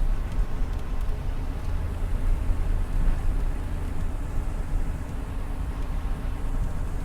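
Steady low road rumble inside a moving car's cabin, with the air conditioning running.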